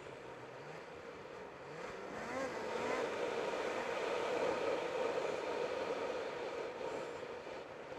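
Snowmobile engine running under load on a break-in ride, revving up about two seconds in and holding louder through the middle before easing slightly.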